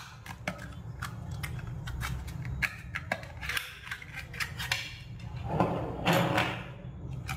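Small cardboard packaging box being opened by hand: scattered light clicks, scrapes and crinkles of the card flaps, with a denser rustle near the end as the plastic thermometer and its cable are pulled out.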